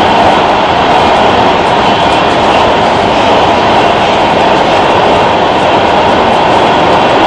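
Los Angeles Metro Red Line subway car running through the tunnel, heard from inside the car: a loud, steady rumble and rush of wheels on rails, with no breaks or pauses.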